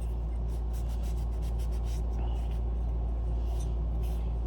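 Rag rubbing and wiping a metal chime part clean, in short irregular strokes, over a steady low background hum.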